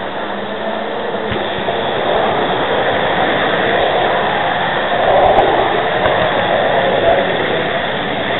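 Model railway train running along the track, picked up by a small camera riding on the train: a steady rushing rumble of wheels and motor that grows louder over the first couple of seconds and then holds.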